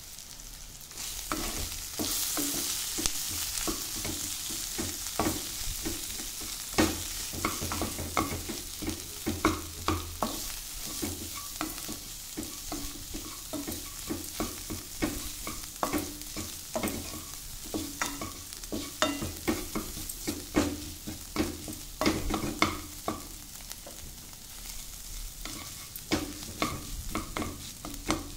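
A wooden slotted spatula stirring and scraping a spiced potato-and-onion mixture around a nonstick frying pan, with repeated irregular scrapes and taps against the pan. Hot oil sizzles steadily underneath.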